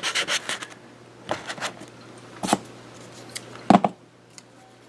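Fingers rubbing a strip of masking tape down onto a foam wing: a quick run of short scratchy strokes. Then a few separate knocks and taps of handling, the loudest about three-quarters of the way through.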